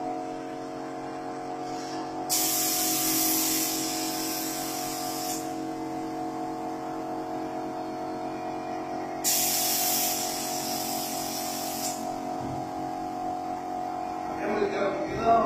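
Gravity-feed paint spray gun hissing in two bursts of about three seconds each, over a steady hum.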